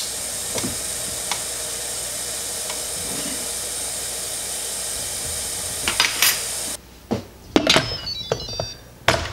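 A steady hiss with a few faint ticks as salt is spooned into the pot. After an abrupt drop in the background, the Instant Pot's lid clacks and clicks as it is set on and turned, with a short electronic chime of tones falling in steps.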